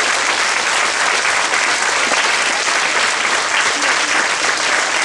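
Steady applause from a theatre audience, with the cast on stage clapping along.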